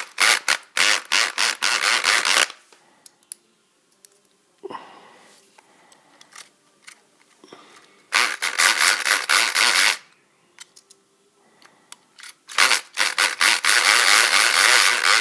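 Homemade electric pick gun, a converted Black & Decker electric screwdriver, running in a padlock's keyway, its pick needle striking the pin stacks in a rapid clicking rattle. It comes in three bursts of about two seconds each, with pauses between.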